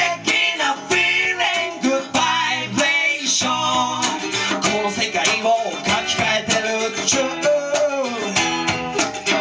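Live acoustic band: acoustic guitar and mandolin strummed in a steady rhythm, with men's voices singing over them.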